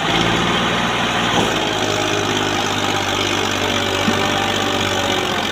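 Massey Ferguson 240 tractor's three-cylinder diesel engine running steadily under load as it pulls a heavily loaded sugarcane trolley.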